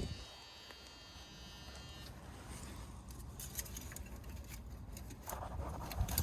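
A faint, steady high-pitched buzz that fades out about two seconds in, followed by scattered light clicks and knocks.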